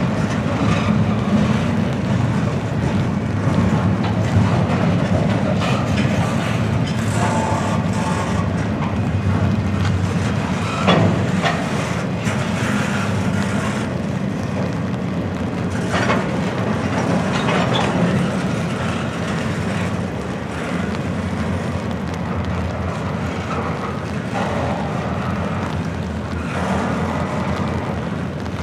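Double-stack intermodal container cars of a freight train rolling past: a steady rumble of wheels on rail, with scattered short clanks, the loudest about a third of the way through.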